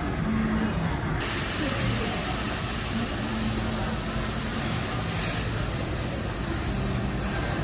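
Food sizzling on a hot teppanyaki griddle: a steady hiss that starts suddenly about a second in.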